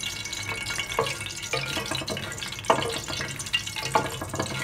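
Whole spices sizzling and crackling in hot oil in a metal pot, stirred with a wooden spatula that knocks against the pot three times.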